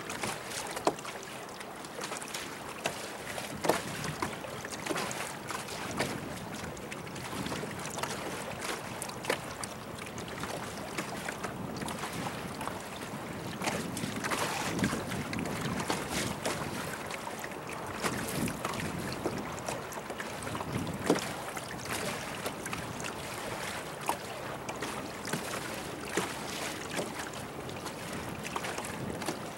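Choppy lake water lapping and slapping against a small boat's hull in irregular splashes, with wind buffeting the microphone.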